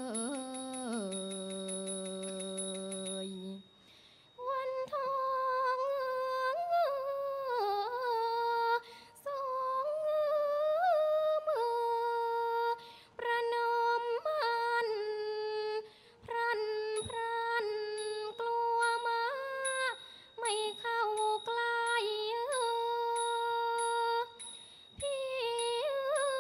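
Unaccompanied Thai classical singing: a lower voice holds a long note, then after a short break higher voices take up the melody in long, ornamented phrases that slide between pitches, with brief breaths between phrases.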